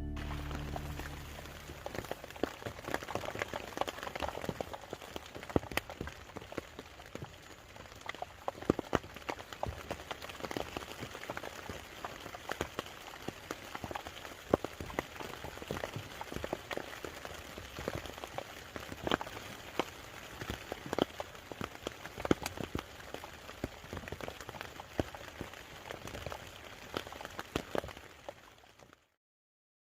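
Rain falling, with many irregular drops pattering on a surface over a steady hiss of rain; it cuts off suddenly near the end.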